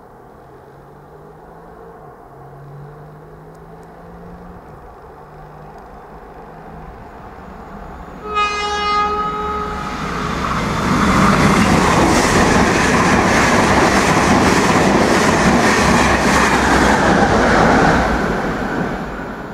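An Irish Rail 201 class diesel-electric locomotive and its Mark 4 intercity train passing at speed. A low diesel drone slowly grows, and a single horn blast about eight seconds in lasts a second and a half. Then comes a loud rush of air and rapid wheel clatter over the rail joints as the train goes by, fading near the end.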